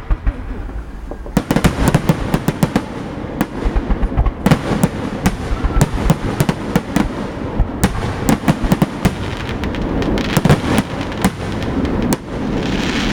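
Fireworks display: rapid, irregular volleys of sharp bangs and crackles, sparse at first and then dense from about a second and a half in, with a steadier crackling hiss near the end.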